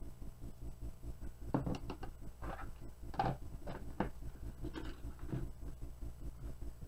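Light plastic clicks and knocks as a small spatula taps against plastic cups and a colorant container is handled, over a steady low hum.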